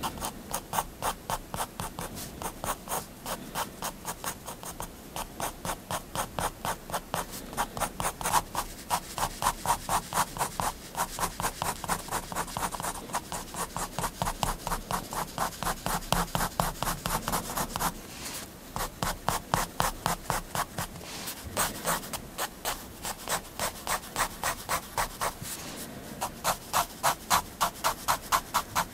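Staedtler Triplus 0.3 mm fineliner scratching across paper in quick, even hatching strokes, about four a second, with a short pause about eighteen seconds in.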